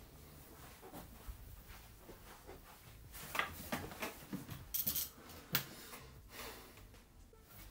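Faint rustling of clothing and a few light knocks and creaks as a person sits down in an office chair and settles hands onto a desk, busiest a few seconds in.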